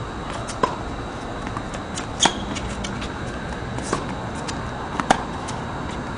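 Tennis rally: rackets striking the ball and the ball bouncing on a hard court, heard as sharp pops a second or two apart, the loudest about two seconds in and about five seconds in, over a steady hiss.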